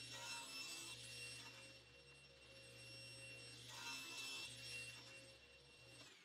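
Table saw running with a steady motor hum and high whine, faintly heard, as the blade cuts twice through walnut: once right at the start and again about four seconds in.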